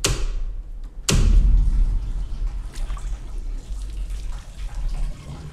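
Horror-trailer sound design: a sharp impact hit that rings out, a second one about a second in, then a low rumbling drone with faint scattered ticks.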